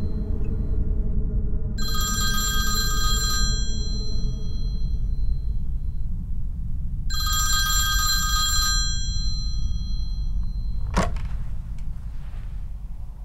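Corded landline telephone ringing twice, each ring about a second and a half long, over a low steady rumble. About eleven seconds in there is a sharp click as the handset is lifted off its cradle.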